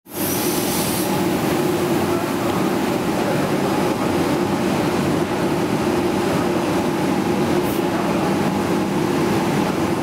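Automatic paintball tumble dryer running, its mesh drum turning with a load of paintballs tumbling inside: a steady mechanical noise with a low hum.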